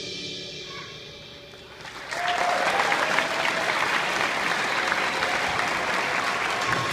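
Background music trailing off, then about two seconds in a large audience starts applauding and keeps up steady clapping.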